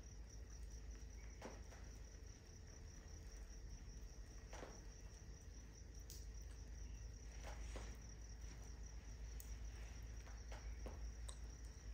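Crickets trilling steadily, with about eight sharp crackles from the burning wood fire scattered through and a low steady rumble underneath.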